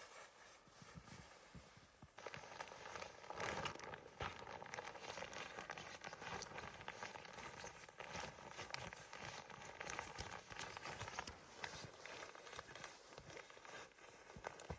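Irregular crunching and knocking, many small strikes close together, louder from about two seconds in.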